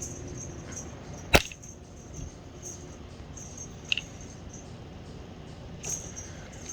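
A cat playing with a string toy: one sharp knock about a second and a half in, a lighter click near four seconds, and faint light ticking throughout.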